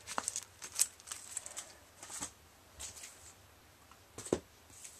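Comic books in plastic bags being handled: a scattered run of short crinkles, rustles and light taps.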